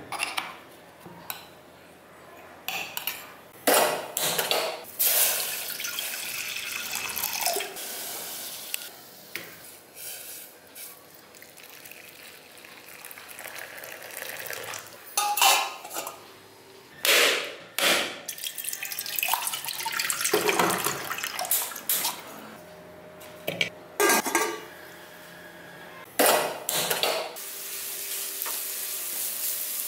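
Kitchen work sounds: steel vessels and utensils clinking and knocking many times, and water poured into a steel bowl. Near the end a steady sizzle starts as onion and grated coconut fry in oil in a pan.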